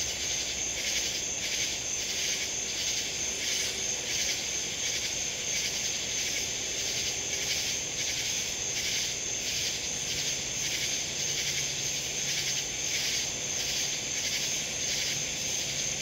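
Chorus of night insects chirring steadily, with a regular pulsing several times a second.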